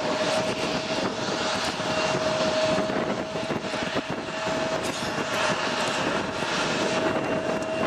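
Airbus A330-343's Rolls-Royce Trent 700 turbofans running at taxi power: a steady whine on one held tone over a broad rushing noise.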